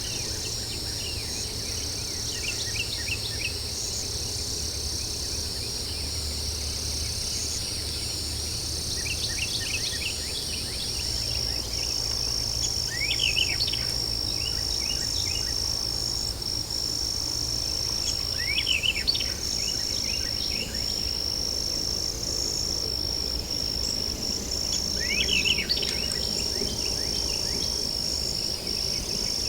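Night insect chorus: a steady high-pitched trill, with short bursts of chirping calls about every six seconds, over a low background rumble.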